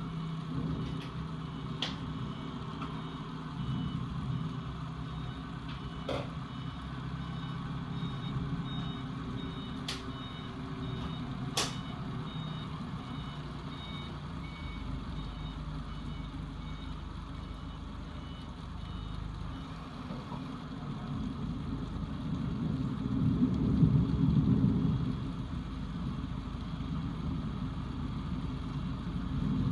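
A heavy vehicle's engine running, with a faint reversing alarm beeping at an even pace through the first half. A few sharp clicks, and a louder low rumble swells about three quarters of the way in.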